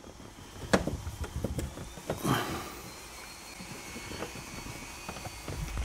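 Plastic B-pillar trim panel of a Honda Civic being pried and worked loose by hand: a few sharp clicks and knocks in the first couple of seconds, the sharpest under a second in, then low handling thumps and rustle.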